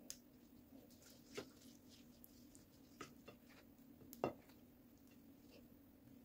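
Faint light taps and scrapes of a silicone spatula against a glass baking dish while spreading sauce over a tortilla: four short knocks, the loudest about four seconds in, over a low steady hum.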